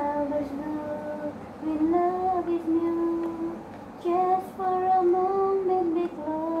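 A woman singing a slow melody in long held notes, in phrases with short breaks between them.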